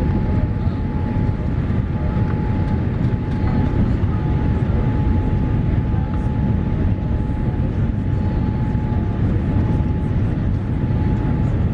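Cabin noise of a Boeing 787-8 on final approach: a steady low roar of engines and airflow, with a faint steady tone running through it.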